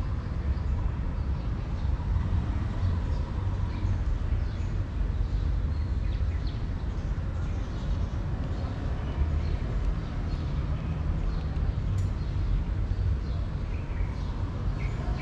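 Steady low rumble of background noise, with faint scattered ticks as a cat crunches dry kibble, and one sharp click near the end.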